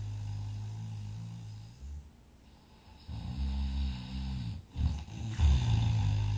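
Loud snoring in breaths of a sleeper: a long, low droning snore fades out about two seconds in, a shorter pitched snore follows a second later, and another loud snore begins near the end.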